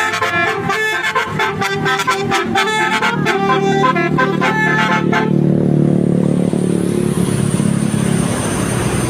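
A bus's telolet multi-tone horn playing a quick melody of changing notes, which stops about five seconds in. After it, a loud low engine and road noise with a thin high whine takes over.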